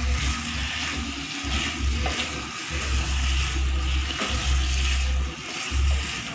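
Cubed pork and ginger sizzling in a dry nonstick pan as they are stirred with a wooden spatula. No oil has been added, so the pork is starting to fry in its own fat. A low, uneven rumbling runs under the hiss.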